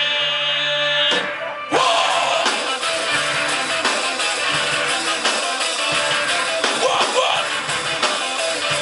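Rock band playing live, led by guitar. About a second in the sound drops away briefly, then the full band comes back in.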